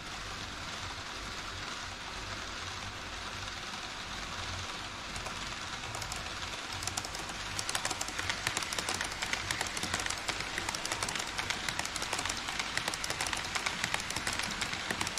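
HO-scale model E5 series Shinkansen running on model track. A steady rolling hiss gives way, about seven seconds in, to a louder, rapid clatter of wheels clicking over the rail joints as the train crosses the truss bridge.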